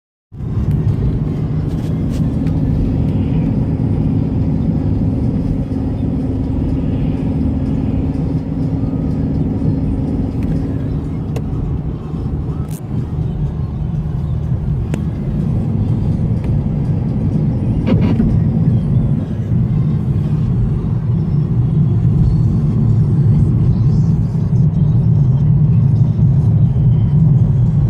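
Car in motion with a steady engine and road rumble, and a few short sharp creaks heard over it: the squeaks a car makes in hard frost.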